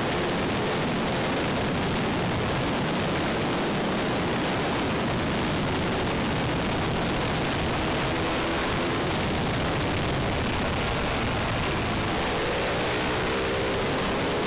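Heavy wind roar on an onboard microphone of a Ducati 848 Evo at track speed, with the bike's L-twin engine faint beneath it. The engine note comes through more clearly near the end, its pitch shifting with the throttle.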